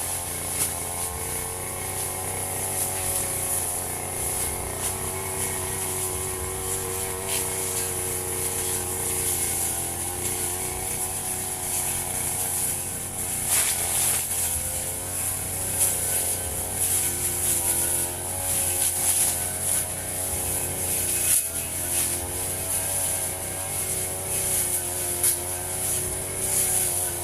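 Firman FGB 528 brush cutter's small engine running at cutting speed, its pitch wavering up and down as it works through grass, with a high whine above it and short ticks now and then.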